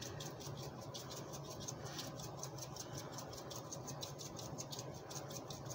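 Pot of tomato-based chicken soup simmering on an electric hob: faint, quick, irregular ticking and popping of bubbles.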